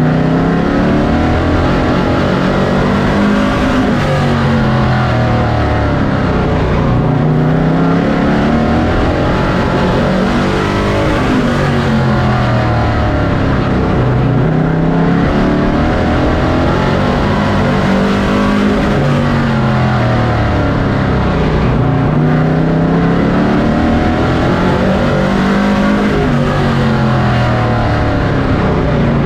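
Pro Truck race truck's engine heard from inside the cab at racing speed, its pitch climbing on each straight and dropping off into each turn, over and over as it laps the track.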